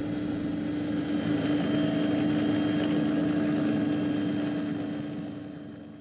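Aircraft engine running with a steady drone, fading out near the end.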